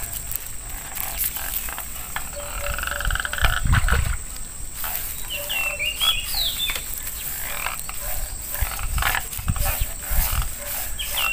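Handling and rustling at the stream's edge, with scattered clicks and a few low thumps, the loudest a few seconds in. A short chirping animal call, a quick run of rising and falling high notes, comes twice, about five seconds apart.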